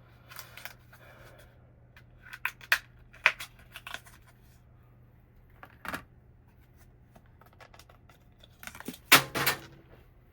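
Scattered clicks and light clatter of small hard computer parts being handled and set down, with the loudest pair of knocks about nine seconds in.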